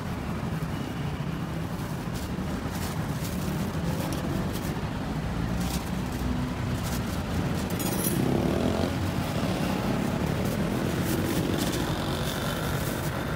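Steady low rumble of street background noise, with scattered light clicks and clatter; it swells slightly about eight seconds in.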